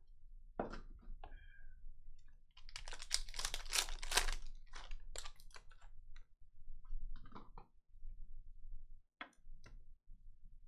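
Foil wrapper of a trading-card pack crinkling and crackling as it is torn open and pulled away, densest about three to five seconds in, followed by a few separate clicks of the cards being handled.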